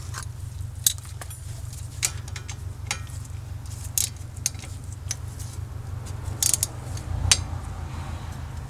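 Scattered sharp metallic clicks and clinks of a hand wrench working on a brake caliper's mounting bolts, over a steady low hum.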